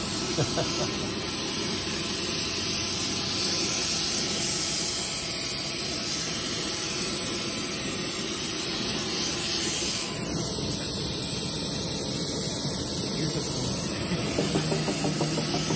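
Gas torch flame hissing steadily as it heats an aluminum bar up to forging heat.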